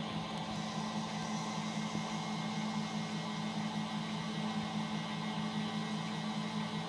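Hotpoint Ariston washing machine running, its drum and motor giving a steady hum with an even whir over it.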